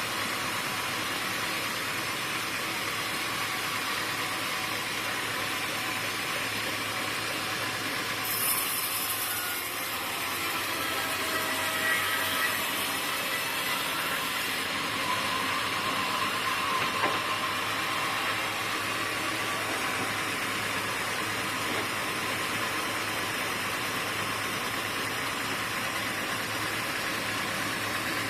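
Sawmill machinery running, a steady mechanical noise with a few brief louder knocks.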